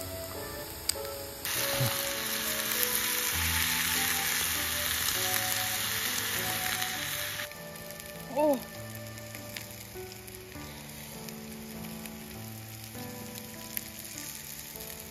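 Meat sizzling and frying in a cast-iron skillet over a portable gas burner. The sizzle is loud for the first several seconds and then drops to a softer hiss, with background music throughout.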